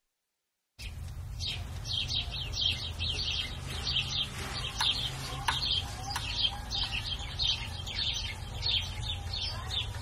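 Field recording of birds chirping, played through a Bastl Thyme tape-delay effect: many quick high chirps over a steady low rumble. The sound cuts in suddenly just under a second in.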